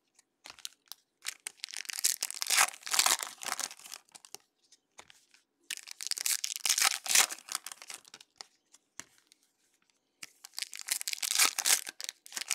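Foil baseball-card pack wrappers being torn open and crinkled, in three spells of crackling with short quiet pauses between.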